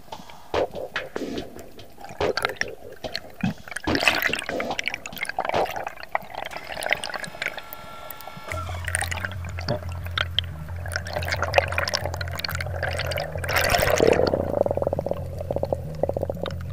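Underwater sound from a diving camera: water movement with scattered clicks and crackles. Background music with a steady low bass comes in about halfway through.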